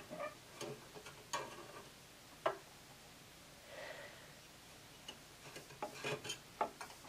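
Faint handling noise of metal tweezers and a fabric strip being worked into a metal binder attachment: soft rubbing and small clicks, with one sharper click about two and a half seconds in and a cluster of little clicks near the end.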